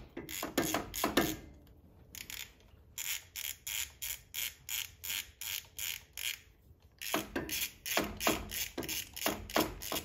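Hand ratchet clicking in steady runs of about four clicks a second, with a short break about two-thirds through, as it runs down the poly lock nuts on a solid roller rocker arm valvetrain to snug them after a valve lash adjustment.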